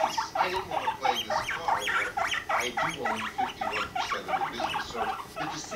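Guinea pigs squeaking in a fast, continuous run of short calls, about five a second, amid a mating chase.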